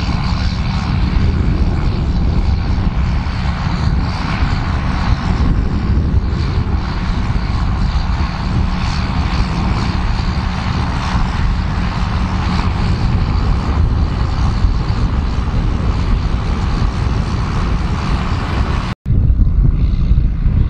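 John Deere 7810 tractor's six-cylinder diesel engine running steadily under load while pulling a 6 m spring-tine cultivator. The sound cuts out for an instant near the end and comes back slightly louder.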